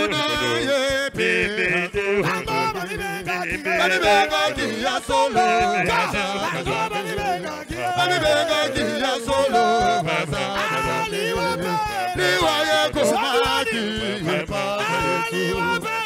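Men singing a worship song into microphones: a lead male voice with a group of backing singers.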